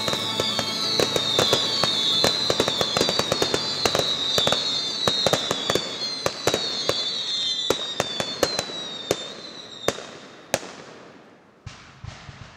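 Fireworks going off in quick succession: sharp bangs and crackles that thin out and fade after about eight seconds, with a last few pops near the end.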